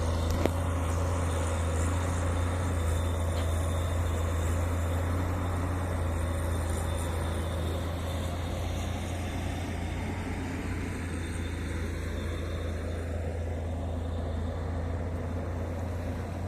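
Komatsu PC200 hydraulic excavator's diesel engine running steadily with a low drone. There is a single sharp knock just after the start.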